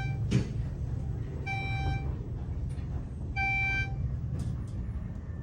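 An electronic beeper sounding a short, steady tone twice, each beep about half a second long and about two seconds apart, over a steady low rumble. A single sharp knock comes near the start.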